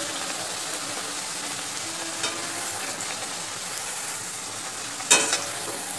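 Spinach luchi deep-frying in hot oil in a steel kadai, sizzling steadily, with a brief knock about five seconds in.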